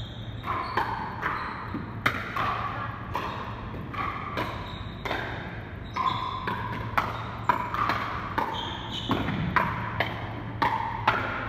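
Pickleball paddles striking plastic pickleballs during rallies: irregular sharp pops, about two a second, several with a short ringing ping, over a steady low hum.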